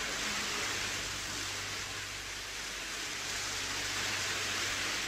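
Steady, even hiss with a faint low hum underneath, the background noise of an old 1953 radio-play recording; no distinct event stands out.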